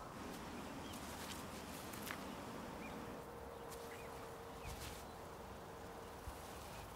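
Faint outdoor ambience: a steady low hiss with a few short, faint chirps now and then. A faint steady tone runs through the middle.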